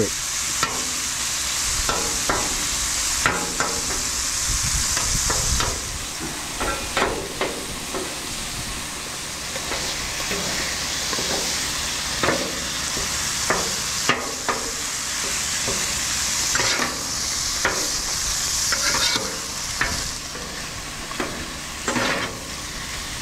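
Ground beef and canned chicken sizzling on a hot Blackstone flat-top griddle, with metal spatulas chopping and scraping across the steel surface in repeated sharp clacks.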